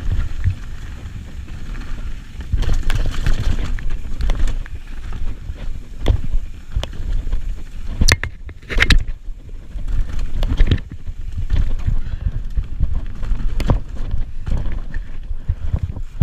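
Mountain bike descending a dirt trail at speed: wind rushing over the microphone, tyres rumbling over the dirt and the bike rattling, with two sharp knocks a little after halfway as it hits rough ground.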